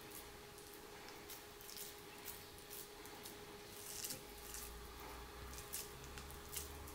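Hands pressing and shaping ground beef kebab mixture around a metal chopstick: faint, irregular soft squishes and small clicks, over a steady faint hum.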